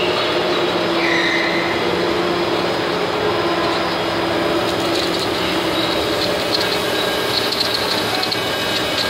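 Machinery running steadily, with a low hum, some higher squealing tones and light clicking in the second half.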